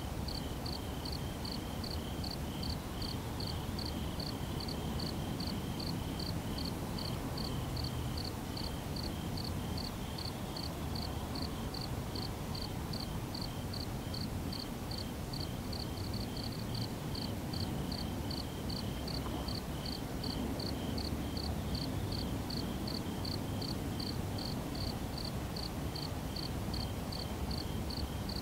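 A cricket chirping steadily, a short high chirp repeated evenly about twice a second, over a low background rumble.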